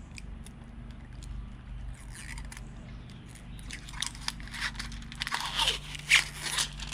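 Plastic protective film or tape being peeled off a phone's new back glass: irregular crackling and crinkling, busier in the second half, with one sharper snap near the end.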